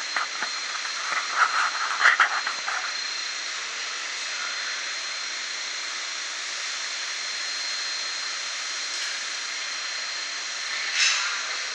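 Steady, even rushing noise of a running machine or fan, with a few light clinks and clatters in the first three seconds and a brief louder swell near the end.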